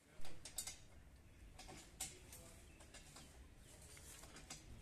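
Faint, scattered clicks and light knocks of equipment being handled, over a low background rumble. The loudest clicks come just after the start and about two seconds in.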